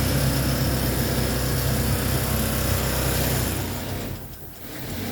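A machine's electric motor running steadily with a low hum, then winding down and stopping about three and a half seconds in.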